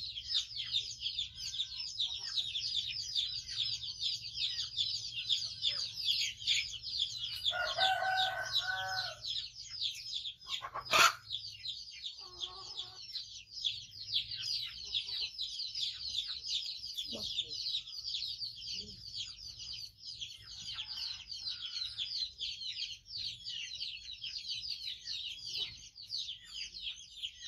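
Chicks cheeping continuously in a rapid, high-pitched chorus, with a rooster crowing once about 8 seconds in. A sharp knock about 11 seconds in is the loudest sound.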